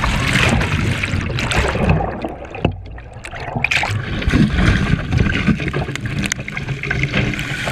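Water rushing and splashing against a camera mounted low on a kitesurf board as it skims across the water, over a heavy low rumble. The noise eases briefly about three seconds in, then returns.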